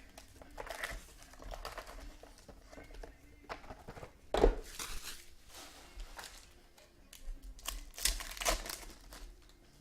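Trading-card pack wrappers crinkling and tearing as packs are opened, in several separate bursts of rustling, the sharpest about four and a half seconds in.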